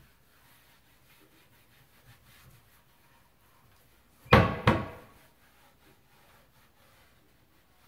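A wooden kitchen cabinet door swinging shut against its frame: two quick wood-on-wood knocks about a third of a second apart, a little past halfway.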